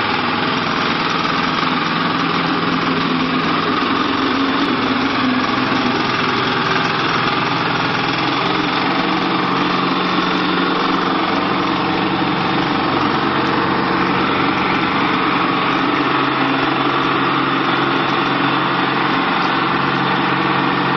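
Self-propelled orchard mist sprayer running steadily while spraying: an even engine hum under a constant loud hiss.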